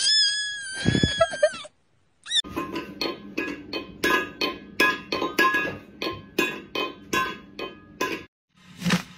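A kitten's high, drawn-out crying meow for the first second and a half. After a short gap comes a rhythmic clinking beat, about three sharp strikes a second, which stops shortly before the end.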